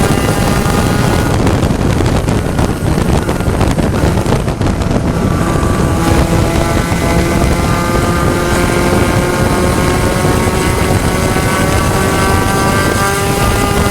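Onboard sound of a Spec Racer Ford Gen3's 1.6-litre four-cylinder engine at racing speed, with wind rushing over the microphone. The engine note drops out about a second and a half in, then comes back about five seconds in and rises steadily in pitch as the car accelerates.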